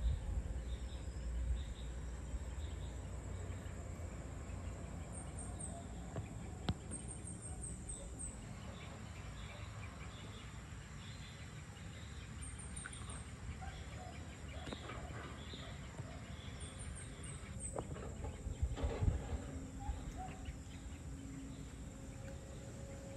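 Dusk ambience of insects and birds calling over a steady low rumble, with four short runs of very high, quick chirps and a brief louder low stir near the end.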